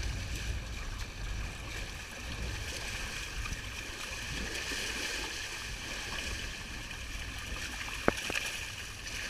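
Water rushing along the hull of a Hobie catamaran under sail, with wind buffeting the microphone as a low rumble. A single sharp click about eight seconds in.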